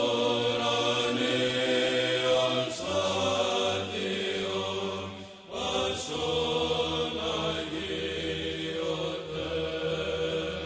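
Orthodox church chant as background music: voices singing long held notes over a low, steady drone. The melody moves to a new note about three seconds in, and again after a short dip about five and a half seconds in.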